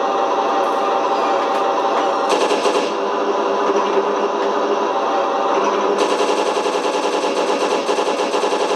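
RC T-34 tank's electronic sound unit playing a simulated engine idle through its speaker, with machine-gun fire: a short burst about two seconds in and a longer burst from about six seconds in.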